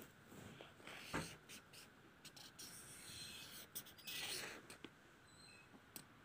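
Faint scratching of a pen tip drawing on paper, in short strokes with one longer stroke near the middle, and a soft knock about a second in.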